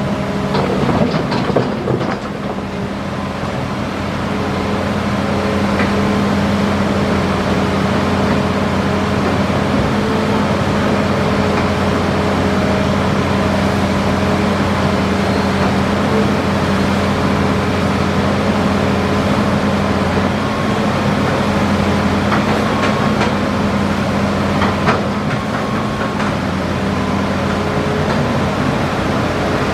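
Hitachi Zaxis 5G excavator's diesel engine running steadily at working revs, a constant low hum, with a few knocks in the first couple of seconds.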